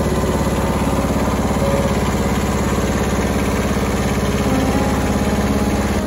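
Kubota compact tractor's diesel engine running steadily as it drives along, heard close up from on the tractor.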